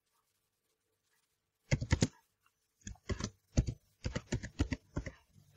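Typing on a computer keyboard: short runs of rapid keystrokes that start after almost two seconds of quiet.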